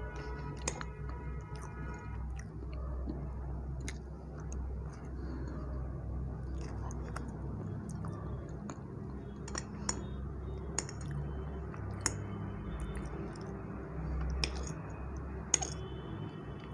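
Close-miked chewing of soft Black Forest cake with whipped cream, in a steady wet mouth sound. About half a dozen sharp clinks of a metal fork against a ceramic plate are spread through it, a couple of them ringing briefly.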